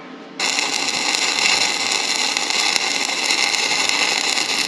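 Stick-welding arc crackling steadily as a flux-coated electrode burns, starting abruptly about half a second in.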